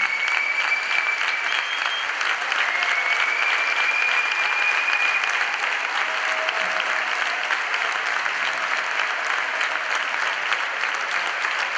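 Crowd applauding steadily in a sports hall, with a long, high held note sounding twice over the clapping in the first half.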